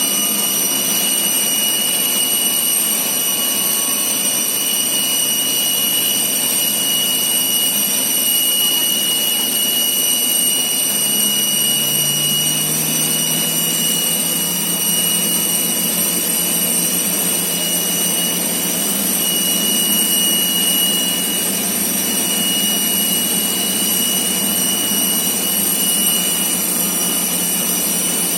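Steady, loud jet turbine whine with several high, even tones over a rushing noise. A low engine note rises about twelve seconds in and then holds steady.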